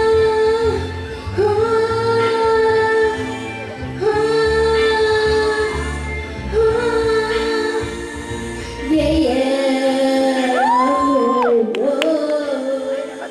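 Pop song with a woman singing long held notes over a steady bass; about nine seconds in the bass drops out, leaving the voice and lighter backing with a sliding note.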